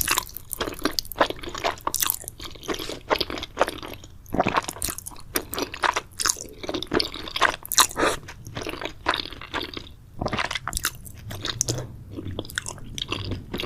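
Close-up sounds of a person eating: chewing and crunching food, with many quick, irregular crackles.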